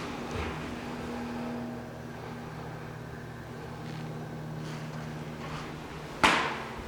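A steady low hum with a few faint clicks, and one sharp knock about six seconds in that dies away quickly.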